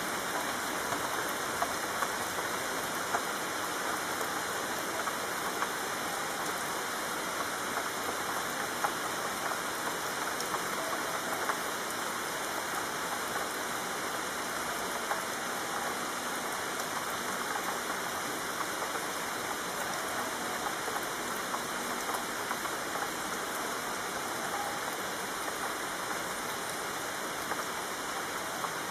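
Steady rain falling: an even hiss of many drops, with a few louder drop hits ticking through it.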